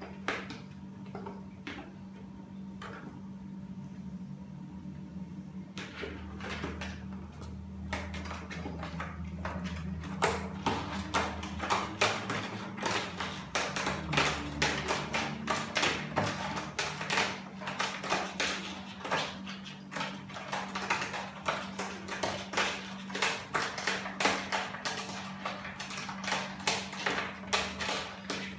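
Two kittens playing on a tile floor with a cardboard box: quick, irregular clicks and taps of paws and claws on the tiles and the cardboard, growing much busier after about eight seconds, over a steady low hum.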